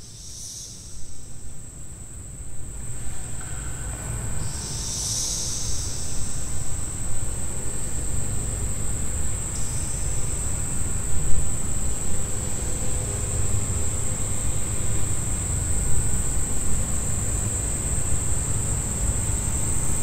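Insects trilling in one steady, unbroken high-pitched drone, over a low rumbling noise that builds up over the first several seconds and then stays.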